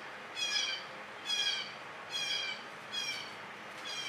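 A songbird calling: a short phrase of quick high chirps, repeated about once a second, five times.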